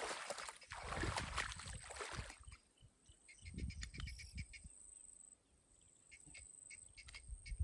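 Crickets chirping in quick repeated pulses over a steady high insect whine. Rustling handling noise fills the first two seconds, and a few low thumps come in the middle.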